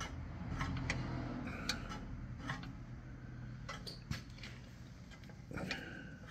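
Scattered light metallic clicks and knocks from the hydraulic lift linkage of a Ferguson TEA20 tractor, as the parts are moved by hand inside the open lift housing.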